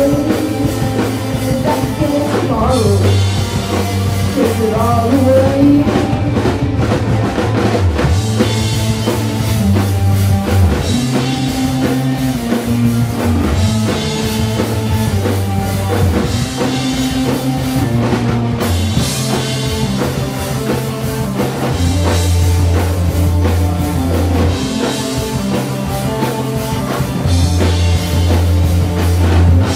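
Rock music with drums, bass and guitar, and a singing voice in places.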